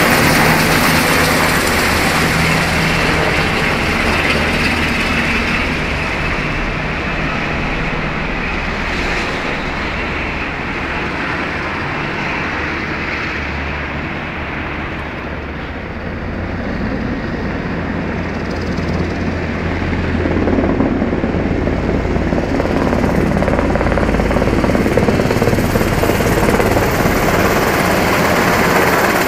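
Army Black Hawk helicopter flying low overhead, a steady, loud rotor and turbine noise. It eases off a little midway and grows louder again after about twenty seconds.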